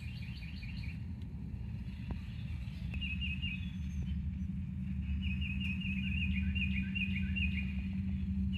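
A songbird singing short runs of quick, repeated chirps, several phrases in a row, over a steady low rumble that grows slightly louder.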